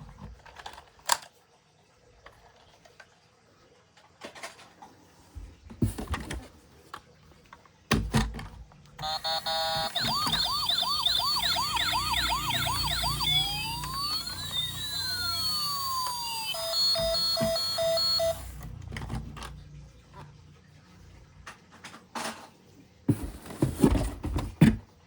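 A toy emergency vehicle's electronic siren running through its patterns: a fast warbling wail, then slow rising and falling sweeps, then a stepped beeping tone, before it cuts off. Scattered clicks and knocks come before and after it.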